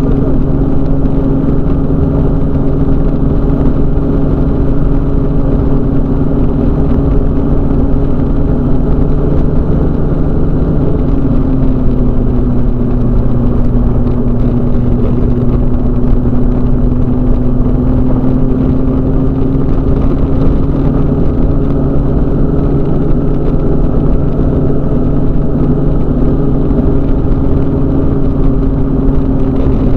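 Microlight trike's engine and propeller running steadily in flight. About eleven seconds in the pitch drops slightly, then slowly rises again.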